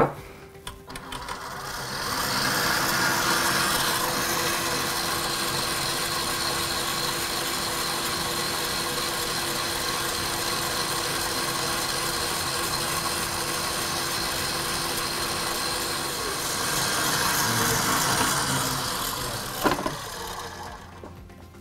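Stand mixer running on high speed, its wire whisk beating egg whites and sugar into meringue. It comes up to speed over the first couple of seconds, runs with a steady hum, and dies away near the end, with a single short knock just before.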